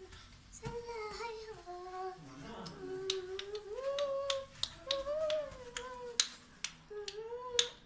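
A child's voice singing a wandering melody without clear words. From about three seconds in it is joined by a quick series of sharp snaps, roughly a dozen, the last and loudest near the end.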